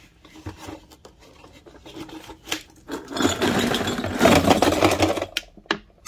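A load of cut copper magnetron resonating cavities poured into the clear plastic bowl of a kitchen scale, clattering densely for about two seconds, after a few light clicks of handling. A few separate knocks follow as the pieces settle.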